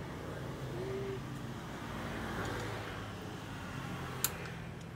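Steady background motor-vehicle traffic noise, with one sharp metallic click near the end as a ring wrench works the front brake caliper bolt.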